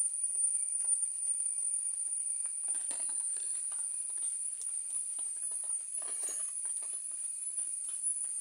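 Dry leaf litter and twigs crackling and rustling underfoot, in two short clusters about three seconds in and again about six seconds in, with small scattered ticks between, over a steady high-pitched drone.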